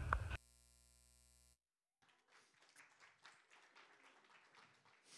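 Near silence: a recorded voice cuts off abruptly, a faint steady hum lasts about a second, then only faint room tone with soft scattered knocks and rustles.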